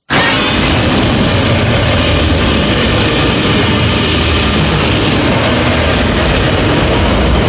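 Godzilla sound effect: a loud, steady rushing rumble that starts suddenly out of silence and holds unbroken, with no clear pitch.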